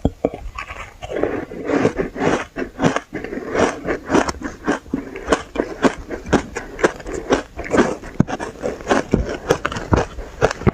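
Powdery shaved ice being bitten and chewed: a continuous run of crisp crunches, several a second.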